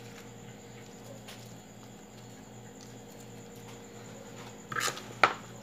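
Quiet steady low hum with a faint high whine, a few faint ticks, then near the end a short rustle followed by a single sharp tap, from hands working at food plated on banana leaves.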